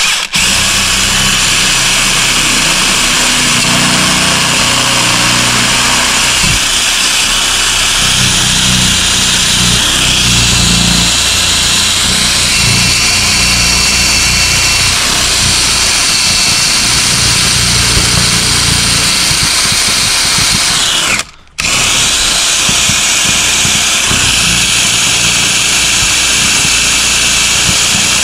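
Cordless drill running continuously as its bit bores into the metal wall of a gun safe. It stops briefly about three-quarters of the way through and then starts again.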